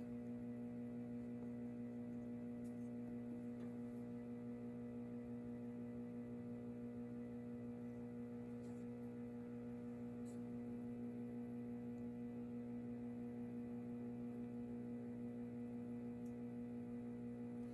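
A steady electrical mains hum, a buzz with several even tones, with a few faint light ticks.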